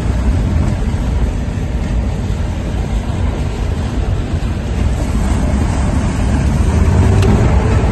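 A 4x4 heard from inside its cabin, engine and tyres making a steady heavy rumble as it drives over a gravel riverbed and through shallow stream water. The rumble grows a little heavier near the end.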